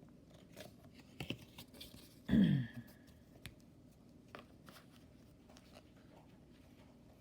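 Trading cards being handled and set aside: soft scattered taps and rustles of cards against each other and the table. A little over two seconds in there is one short, louder sound whose pitch falls quickly.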